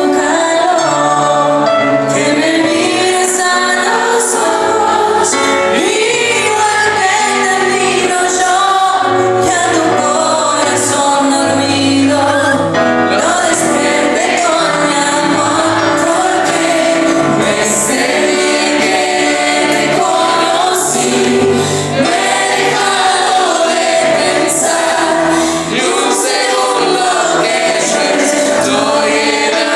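Pop song with several voices singing together over a band accompaniment, loud and continuous.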